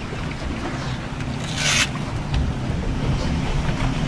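Boat's outboard engines idling with a steady low hum, with wind and water around the hull. A short burst of hiss comes about a second and a half in.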